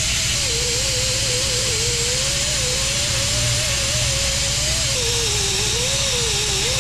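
Small right-angle grinder with an abrasive disc grinding down welds on a steel frame rail: a steady high hiss with a wavering whine that sags in pitch as the disc is pressed harder into the metal, twice near the end.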